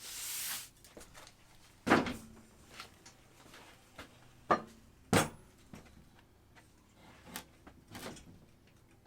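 Workshop clatter: a short hiss at the start, then a series of separate knocks and clunks as things are moved about and set down, the loudest about two and five seconds in.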